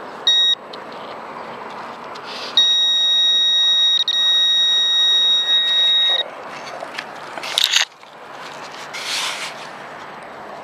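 Metal detector's electronic target tone: a short high beep, then the same steady high tone held for about three and a half seconds. Near the end come two brief scrapes of digging in sand.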